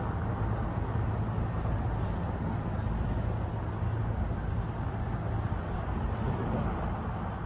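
Steady low rumble of a military helicopter's rotor and engine.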